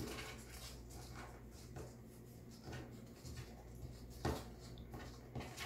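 Faint rustling and creasing of paper being folded by hand on a tabletop, with a few soft crinkles, the sharpest about four seconds in.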